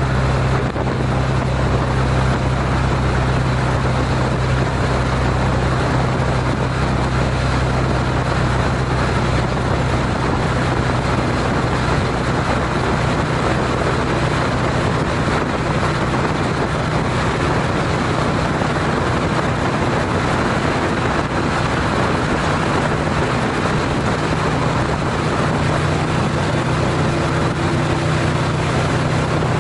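Honda CTX700 motorcycle's parallel-twin engine holding a steady highway cruise at about 70 mph, a constant low hum under an even rush of wind and road noise.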